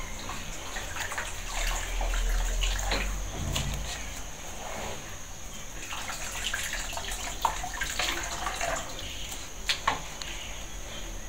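Water poured from a plastic jug over a person's hands and splashing into a plastic basin during handwashing, with a few sharp clicks near the end.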